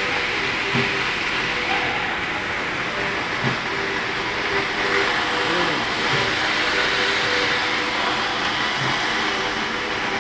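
Circular knitting sinker machine running: a steady mechanical whir and clatter with a faint hum.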